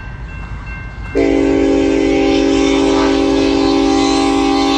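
Union Pacific locomotive air horn sounding one long blast for the grade crossing, starting about a second in: a chord of several tones held steady.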